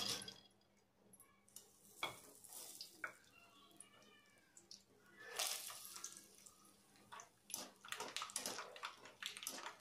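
Faint sizzling and crackling of raw peanuts frying in hot oil in a spider strainer, the crackles coming thickly in the second half, after a single click about two seconds in.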